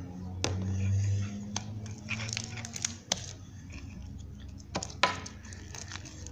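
Scattered light clicks and taps of hands handling a plastic foot-powder bottle and a slime container, with a few sharper knocks about half a second, three seconds and five seconds in. A low hum sounds underneath in the first couple of seconds and fades out.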